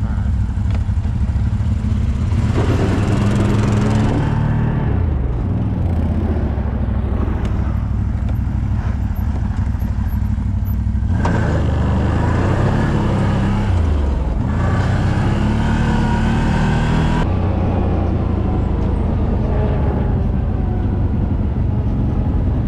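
Off-road vehicle engine running under way, revving up and easing off twice, about three seconds in and again around eleven seconds, with a rushing noise during the faster stretches.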